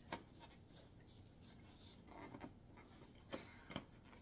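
Near silence with faint rubbing and a few light clicks: a bicycle-style stroller tire and inner tube being handled on the wheel rim.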